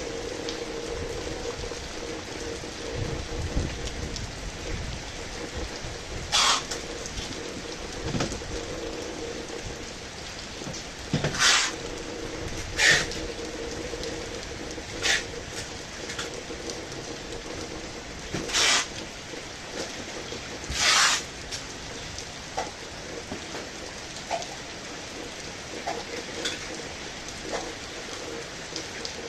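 Heavy rain falling steadily, with a steady low hum underneath. About five brief, louder bursts of noise stand out over the rain, a few seconds apart, in the middle of the stretch.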